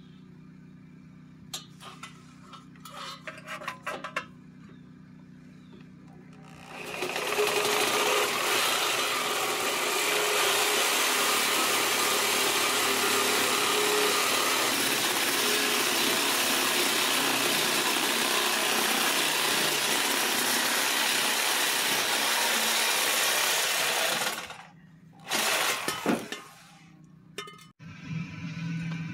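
Reciprocating saw cutting through the steel exhaust tailpipe: a few clicks as it is set up, then the saw runs steadily for about seventeen seconds, followed by a brief second burst.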